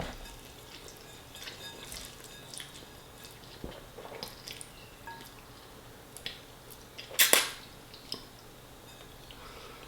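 A person eating spaghetti: scattered small clicks and mouth noises, with a sharp, louder clack about seven seconds in, typical of a fork knocking against the plate.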